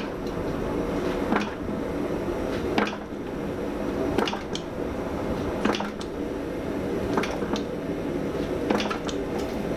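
Hammer blows on hot mild steel at the anvil, drawing the bar out lengthwise: a sharp ringing strike about every one and a half seconds, with a few lighter taps in between, over a steady hum.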